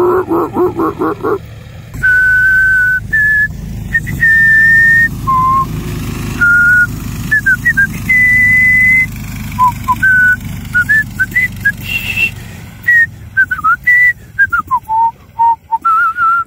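A person whistling a tune: a string of held notes with short slides between them. A low rumble runs underneath, strongest in the first half.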